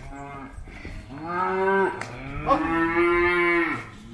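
Calves mooing: a short, fainter call, then two long, loud bawls of about one and one and a half seconds.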